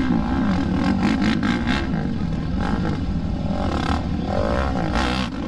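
Quad (ATV) engines revving up and down in short throttle bursts as the quads work slowly through a section of large tyres.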